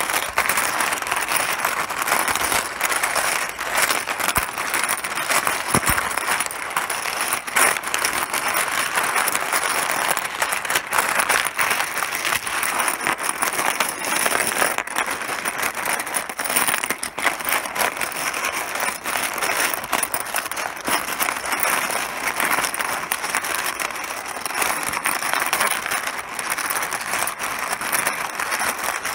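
Mahjong pieces clattering continuously against each other: a dense, unbroken stream of small hard clicks.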